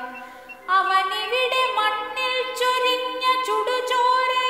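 A Malayalam song sung with long held notes, the voice sliding up into some of them.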